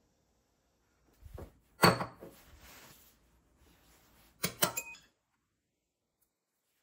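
A single knock about two seconds in, then a quick cluster of clinks with a short ring as a metal spoon scoops and taps soft food from a glass container into a small ceramic bowl.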